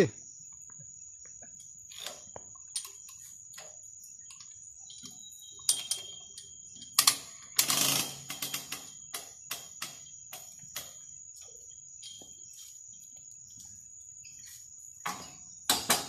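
Steady high-pitched insect trill with scattered clicks and knocks over it, and a louder rustling clatter about eight seconds in.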